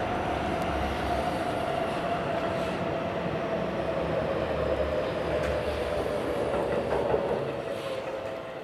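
A train running steadily, out of sight: a rumble with a humming tone that slowly sinks in pitch, fading away over the last second or so.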